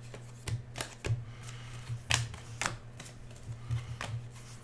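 Football trading cards being flipped and slid against one another, a string of short flicks and snaps at irregular intervals, over a low steady hum.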